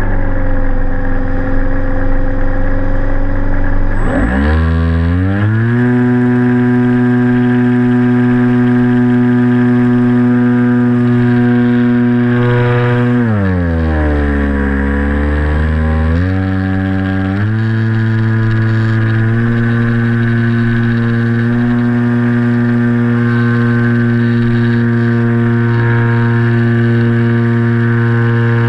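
Motor and propeller of a small RC flying wing, heard from the camera mounted on the aircraft, running with a steady pitch. The pitch rises sharply about four seconds in, dips for about three seconds in the middle, then climbs back and holds steady.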